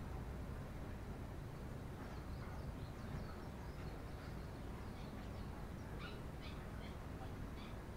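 Eurasian tree sparrows chirping: short, high chirps come in scattered bunches, thickest about two seconds in and again near the end, over a steady low rumble.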